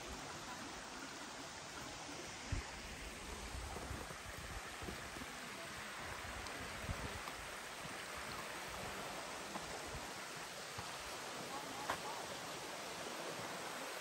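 Small mountain creek flowing steadily, a constant rush of running water, with a few soft knocks and low rumbles near the microphone.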